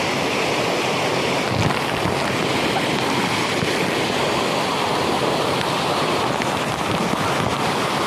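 Fast-flowing stream water rushing and churning in whitewater, a steady loud rush with no breaks.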